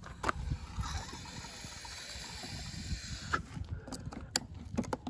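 A few sharp plastic clicks and knocks as the suction hose's connector is pushed onto the Hyundai HYB80 pressure washer's water-inlet filter, over a low rumble of handling noise.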